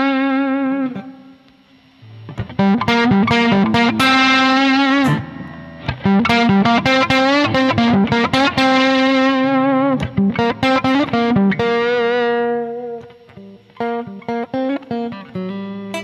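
Electric guitar played through a Zoom G1Xon's Z Neos amp model, a crunchy modified British class-A combo sound: held notes with vibrato and picked phrases. Near the end the playing gets quieter and cleaner as the guitar's volume knob is rolled back.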